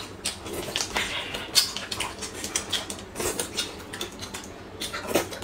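Small spoons scraping and tapping in yogurt cups, with the clicks and mouth noises of two people eating spoonfuls of yogurt with a crunchy cereal topping.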